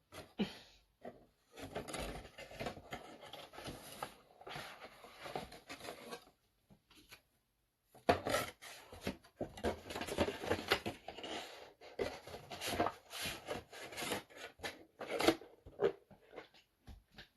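Things being handled and slid about on a tabletop: irregular rubbing, scraping and light knocks, stopping for about two seconds midway and then resuming.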